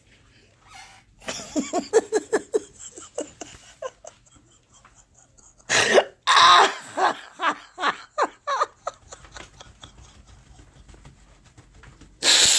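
A person laughing hard in two bouts of quick, pulsing laughs, with a loud breathy burst near the end.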